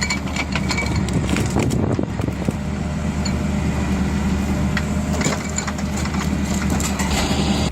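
Engine-driven firewood splitting machine running steadily, with scattered cracking and snapping of wood over the engine. It cuts off abruptly at the end.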